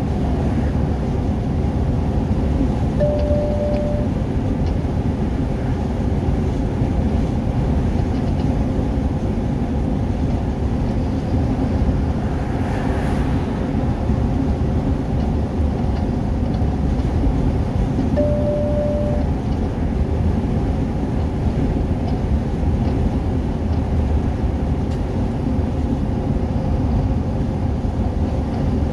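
Steady engine and tyre rumble heard inside a vehicle's cabin at motorway speed. Two short beeps sound about fifteen seconds apart.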